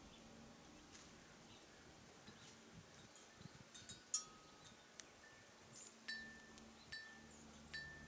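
Faint metal wind chime ringing: a few separate notes around the middle, then the same high note struck about four times near the end, each dying away quickly.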